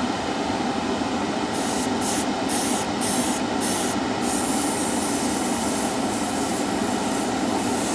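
Harder & Steenbeck Infinity airbrush hissing in about five short bursts, then spraying steadily for about three seconds. It is laying thin test lines of thinned Mr. Color lacquer. Under it runs the steady drone of a spray booth's extractor fan.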